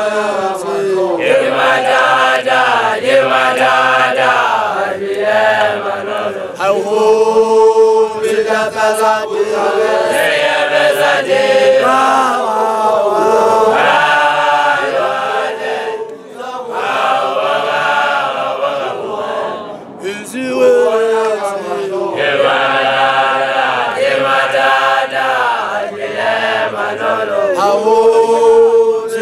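A woman's voice leading a chanted traditional song, with other voices singing along. It goes in phrases of a few seconds with short breaks between them.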